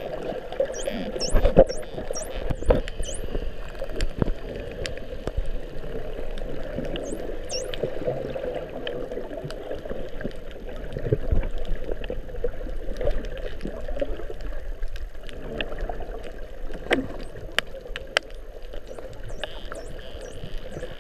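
Underwater recording of bottlenose dolphins whistling: several short, high whistles that sweep downward, bunched in the first few seconds and again about a third of the way in, over scattered clicks and the muffled rush of water against the camera.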